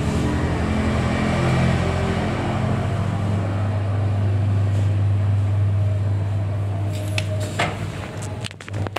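Mother cat purring close up while nursing her newborn kittens, a steady low pulsing hum. A few short clicks near the end.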